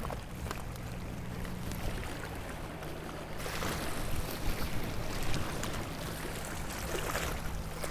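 Sea water lapping against the rocks and wind on the microphone, over the steady low hum of a distant boat engine; the rush of wind and water grows louder about three and a half seconds in, with a few scattered clicks.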